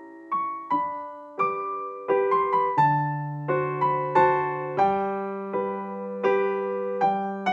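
Background piano music: notes and chords struck one after another, each ringing and fading, with a low bass note coming in about three seconds in.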